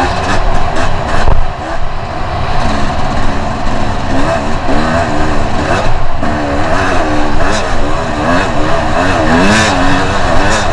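Two-stroke enduro motorcycle engine revving up and down continuously as the bike is ridden over rough ground, with the pitch constantly rising and falling, under heavy wind and ride noise.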